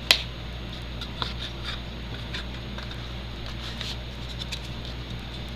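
Handling noise as a cardboard lighter box and its paper insert are put away: one sharp click at the start, then a few faint taps and rustles over a steady low hum.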